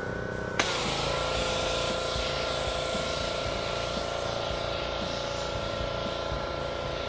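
Pressure washer spraying against a fiberglass boat deck: about half a second in, the trigger is squeezed and a steady hiss of spray starts suddenly, while the machine's running tone drops slightly in pitch under load.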